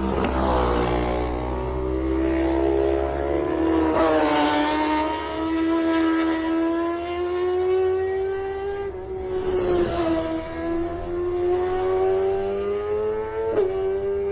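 Racing motorcycle engine held at high revs, its pitch slowly climbing, with a brief dip about ten seconds in and a sharp one near the end.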